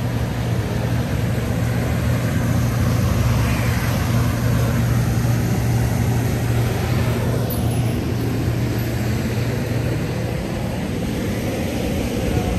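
City street traffic: a steady low engine rumble with a wash of road noise, and vehicles passing a couple of times.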